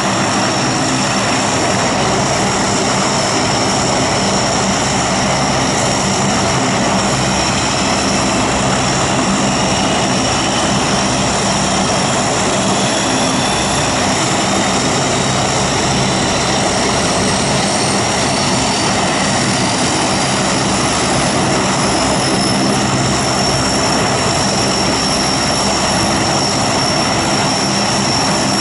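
Lockheed Hercules with all four Allison T56 turboprop engines running on the ground, propellers turning: a steady, loud propeller roar and turbine whine, with a fainter tone slowly rising in pitch through the middle.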